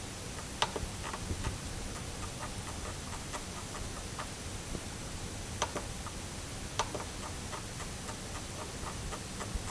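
The scroll wheel of a Radiomaster TX16S transmitter ticking through its detents in quick runs as it is turned to step through values, with three sharper, louder clicks, about half a second, five and a half and seven seconds in.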